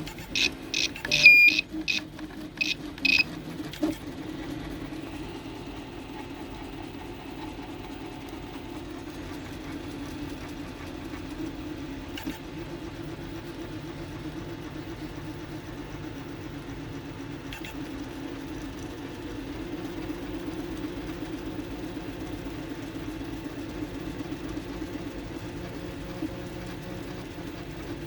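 3D printer's NEMA 17 stepper motors, driven by TMC2209 drivers in stealthChop, humming with a steady, even drone: the strange resonance noise these drivers make at about 60 mm/s print speed. A few short high beeps sound in the first few seconds.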